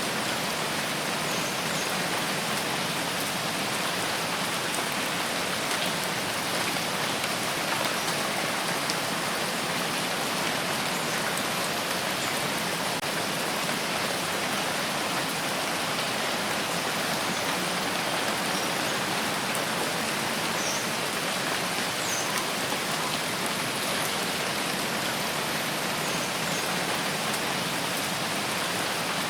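Steady rain falling, an even hiss of drops on a surface, with a few faint patters of individual drops.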